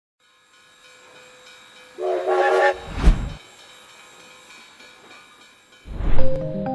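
Steam locomotive whistle giving one short chord blast over a faint steady hiss, then a loud low blast. A second low blast comes near the end as music begins.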